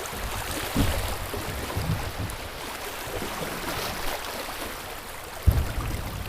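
Flowing river water, with a few low thumps and knocks, the loudest a sharp one near the end.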